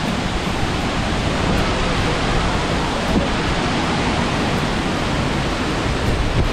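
Burney Falls waterfall and the creek rapids below it rushing, a steady, even roar of water.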